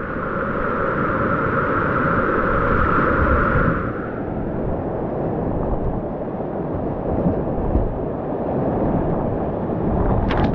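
Whitewater rushing loudly through a steep creek rapid, a dense steady roar with a higher hiss that drops away about four seconds in. A single sharp knock near the end.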